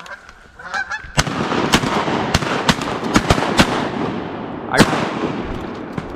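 A flock of Canada geese honking as they fly over, with several shotgun shots fired in quick succession from about a second in, the last near five seconds in.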